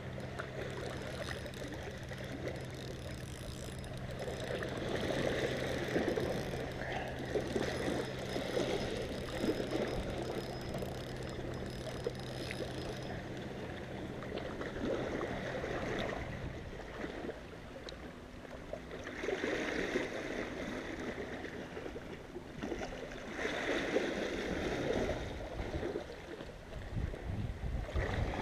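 Small sea waves lapping and sloshing against shore rocks, swelling every few seconds. A steady low hum runs through the first half and stops about sixteen seconds in.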